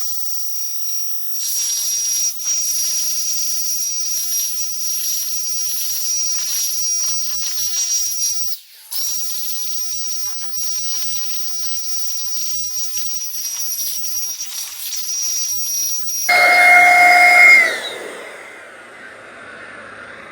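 Electric paint sprayer spraying primer: a steady high hiss with a thin whistle-like tone, briefly interrupted about nine seconds in. Near the end the sprayer's motor whine stands out louder for a second or so, then winds down and fades.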